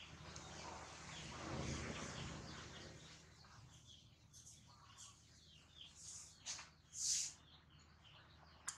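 Faint, high chirping calls scattered throughout, with a rustle in the first few seconds. The loudest sounds are two short bursts of hiss, about six and a half and seven seconds in.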